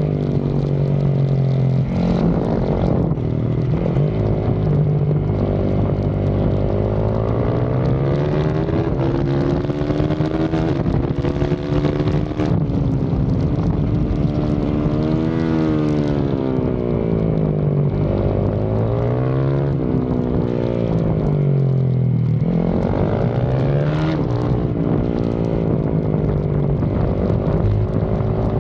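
Yamaha YZ450FX single-cylinder four-stroke engine under hard riding on a track. Its revs climb and fall several times as the bike accelerates out of corners and slows into them.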